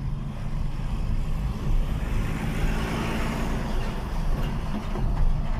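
Steady low engine and road rumble heard from inside a moving car in city traffic. A neighbouring vehicle's noise swells and fades about halfway through as it goes by.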